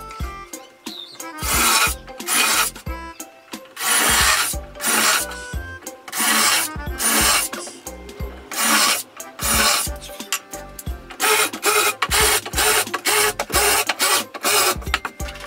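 Cordless impact driver driving wood screws through 2x4 slats into a bed frame, in a run of bursts about a second long that come shorter and quicker near the end. Background music plays underneath.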